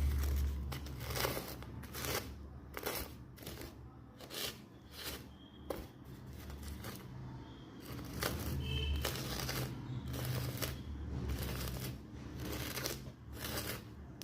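Small seashells clicking and clattering as they are handled and knocked together, in irregular sharp strokes.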